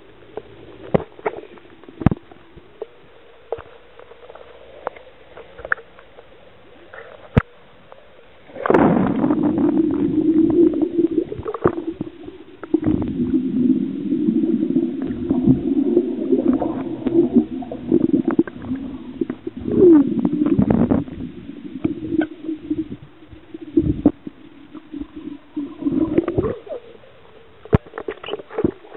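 Muffled underwater sound of water and air bubbles. It starts as scattered sharp clicks and pops. About nine seconds in there is a sudden loud rush, and after it a low, dull rumble of bubbles and moving water that keeps surging and dropping away.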